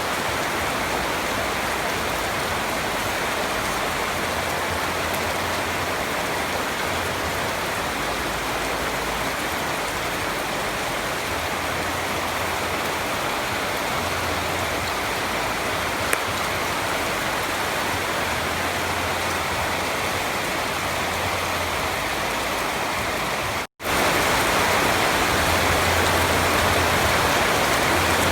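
Steady rain falling, an even hiss. About 24 s in it cuts out for an instant and comes back slightly louder.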